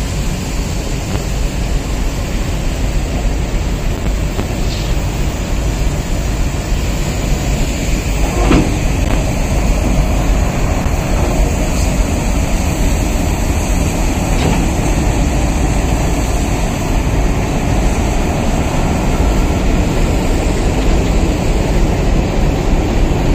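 Diesel locomotive engine running as the locomotive moves slowly through an automatic coach washing plant, mixed with the steady hiss of the plant's water sprays on its side.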